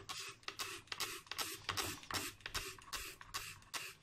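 Trigger spray bottle misting water onto a plant's leaves: rapid repeated squirts, several a second, each a short hiss.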